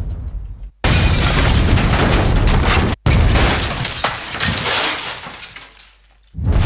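Bomb explosions cut one after another: each starts abruptly and loud, and one rumbles and crackles away to near silence before the next blast near the end.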